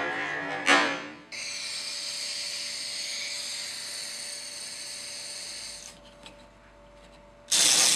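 A small mechanism whirring steadily for about four and a half seconds, then stopping, with a short swish just before it starts. Loud music cuts back in near the end.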